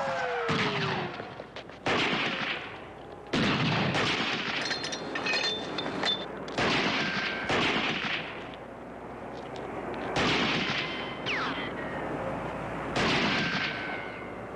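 A sniper's rifle fires single shots about one to two seconds apart, about nine in all, each with a long echoing decay. A police siren winds down in the first second.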